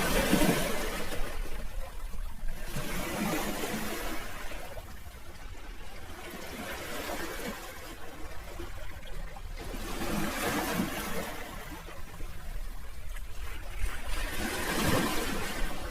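Sea waves washing onto the shore, the hiss of water swelling and falling back in a new surge every three to four seconds.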